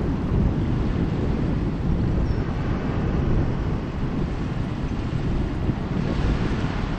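Distant jet engines of F-15C Eagles and a KC-46A tanker flying overhead, heard from the ground as a steady low rumble, with wind buffeting the microphone. The rumble eases slightly near the end.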